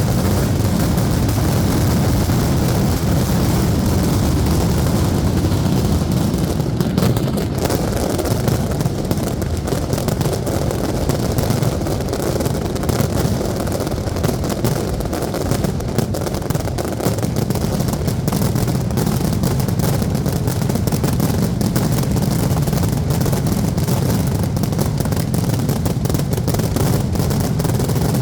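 Aerial fireworks going off in a dense, unbroken run: countless shell bursts and crackles packed so close that they merge into a steady rumble.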